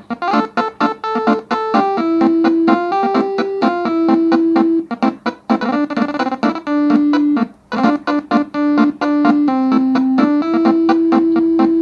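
Fast melody of short, quickly repeated notes over held lower notes, in an electronic keyboard-like tone: a MIDI tune made for a 12-note basuri telolet bus horn. The tune briefly drops out a little past halfway.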